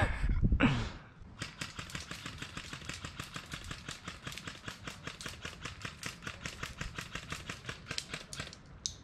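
Airsoft gunfire: two loud close thumps in the first second, then a long rapid run of sharp clicking shots, about eight a second.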